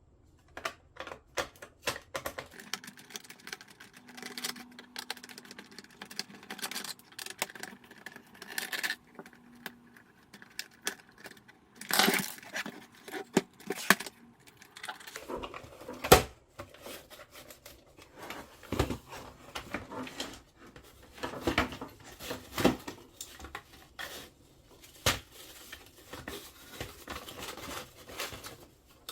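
Hands taking apart a vintage desktop printing calculator: irregular clicks, taps and short scrapes of its casing and parts being handled, with one sharp knock about sixteen seconds in.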